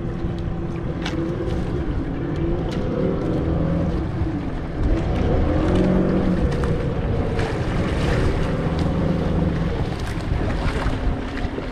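Outrigger fishing boat's engine running steadily at low speed, its pitch rising and falling a little around the middle, with wind on the microphone and water around the hull.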